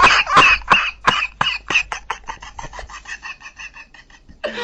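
A man coughing in a long fit: a run of short hacking coughs, about three or four a second, growing fainter over several seconds.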